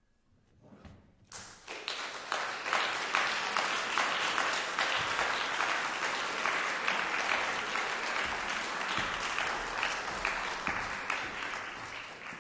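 A concert audience bursts into applause about a second in, after the last piano notes have died away; the clapping holds steady and begins to fade near the end.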